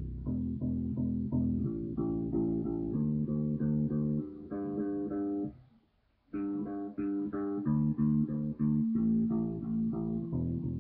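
Ibanez BTB electric bass played through a small powered monitor: a run of plucked notes, several a second, climbing up the neck, with a short break a little past halfway before the notes resume. These are old strings that have just been detuned and slapped hard to try to brighten their dead tone.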